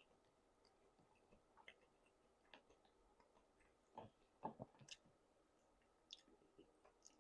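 Faint, scattered wet mouth clicks and smacks of a person chewing food, with a few louder ones about four to five seconds in.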